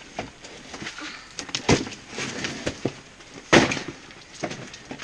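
A large cardboard box being handled and set down on a tent groundsheet: a series of knocks and thumps, the loudest about three and a half seconds in.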